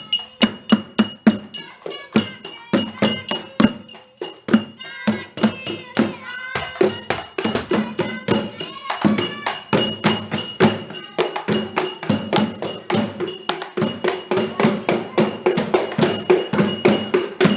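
Sahur wake-up street percussion: drums beaten in a fast, even rhythm of about three strokes a second, with tambourine jingles and some voices chanting along.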